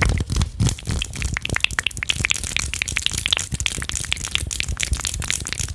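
Fast, wet ASMR mouth sounds at close range on a microphone at full sensitivity: rapid tongue and lip clicks and smacks, many a second, without pause.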